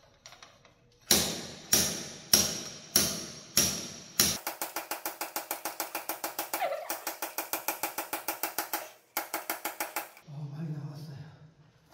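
Slide hammer striking a seized injector in a Mercedes-Benz Sprinter diesel cylinder head: six sharp metallic blows about half a second apart, each ringing briefly. The blows are followed by a fast, even clicking of about seven clicks a second, which pauses briefly and resumes.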